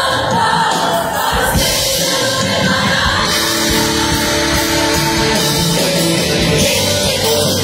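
Live gospel worship song: a group of women singing into microphones over instrumental backing, with a large congregation singing along.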